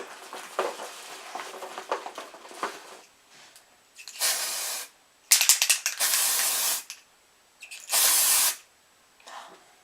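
An aerosol spray can being sprayed in three short bursts, the middle one the longest and starting in a few stutters, after a few seconds of faint handling rustle and clicks.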